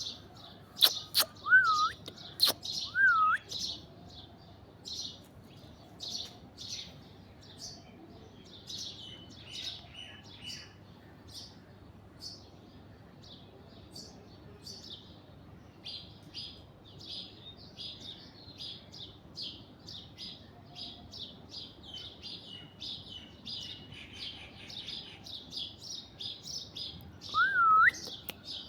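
Birds chirping rapidly and continuously in high, short notes, with a few loud whistled calls that dip and then rise in pitch, twice in the first few seconds and once near the end.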